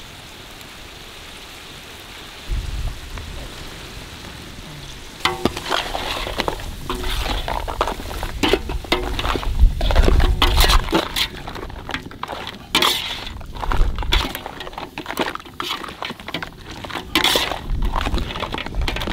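King crab pieces being stirred in a large steel pot with a utensil over a steady sizzle: repeated scraping and clattering of shell and utensil against the pot, starting about five seconds in. Before that, only the sizzle and a few low thuds.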